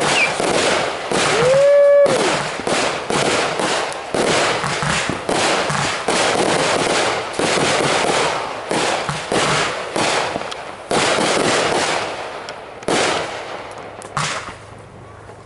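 Consumer fireworks going off in rapid volleys: dense bangs and crackle from aerial shells and cakes, thinning near the end to a few separate reports.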